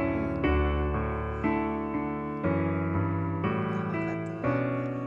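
Background piano music, with a new chord struck about once a second and left to fade.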